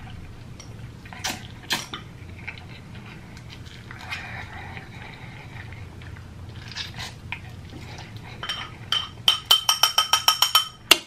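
A person eating instant noodles with metal chopsticks, with slurping and chewing noises. Near the end there is a quick run of about a dozen sharp clicks, several a second, with a faint ringing.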